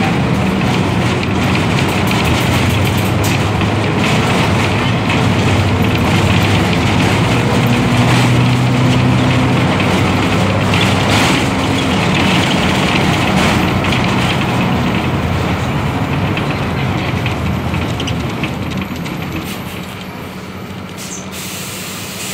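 Diesel engine of a Mercedes-Benz OF-1721L BlueTec 5 city bus running under way, its pitch rising and falling with the gears and road speed, then dropping quieter near the end as the bus eases off.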